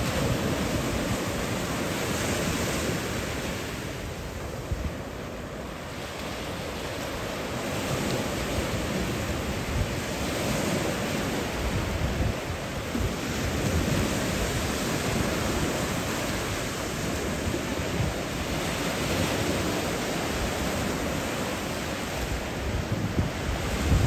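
Small waves breaking and washing up on a sandy beach, the surf swelling and easing every few seconds, with wind buffeting the microphone.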